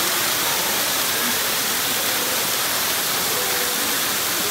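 Waterfall pouring onto mossy rock close by: a steady, even rush of falling water.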